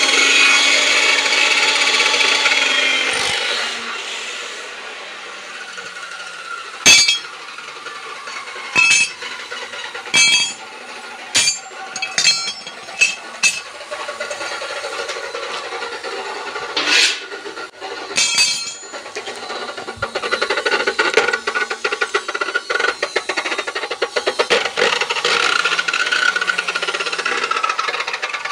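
Metal fabrication on an iron gate. A power tool's whine runs down in the first few seconds. Then about ten sharp metallic taps ring out on the iron. In the last third there is a dense, steady crackling of electric arc welding.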